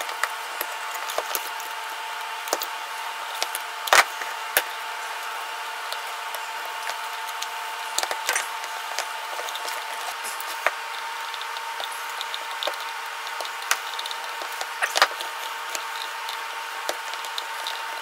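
Scattered clicks and knocks of a mechanical microwave timer, its wires and an extension cord being handled and pressed into a small wooden box, with the loudest knocks about four seconds in and near fifteen seconds, over a steady background hum.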